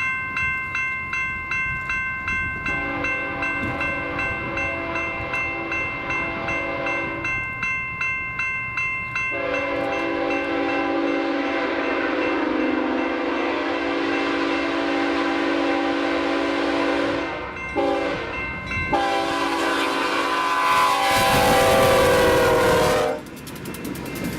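An approaching BNSF freight locomotive's horn sounds the grade-crossing signal over a crossing bell dinging about three times a second: two long blasts, a short one and a final long one. Near the end the horn cuts off as the locomotives pass close by.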